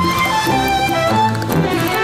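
Violin playing a melody over instrumental backing music with a bass line.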